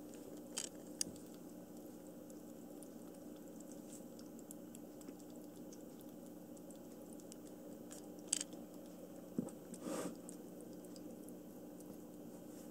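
A kitten lapping water from a pet drinking fountain: a few short wet clicks and slurps about a second in and again near 8 and 10 seconds, over the steady low hum of the fountain's pump. The kitten is drinking for the first time and cannot lap properly yet.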